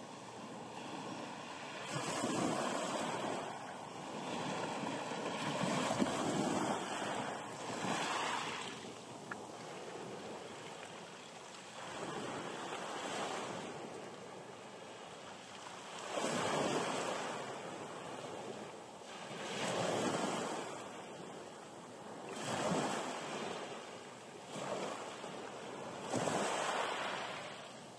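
Small waves breaking and washing over a pebble beach, each swell rising and falling away every few seconds.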